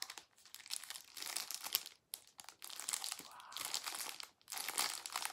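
Clear plastic wrapping on a brownie crinkling as it is handled and turned over in the hands, a dense crackle with short breaks about two and about four seconds in.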